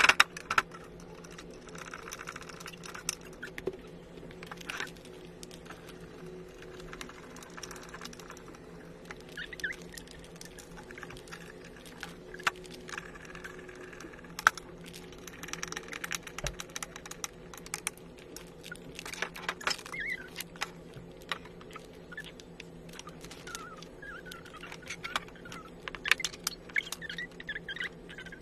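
Scattered light clicks, taps and rattles of small fittings and panels being handled while a toy kitchen is put together, with a busier run of clicks near the end, over a faint steady hum.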